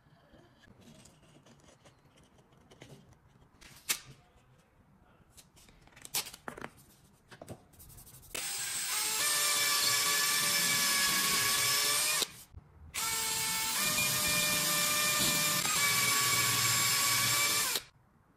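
A few light knocks and clicks, then an electric drill running in two long runs of about four to five seconds each, with a steady motor whine and a short pause between them.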